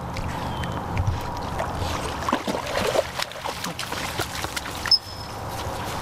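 A spaniel splashing and pushing through wet plants at a pond's edge: a run of irregular rustles and small splashes, with one sharper snap about five seconds in.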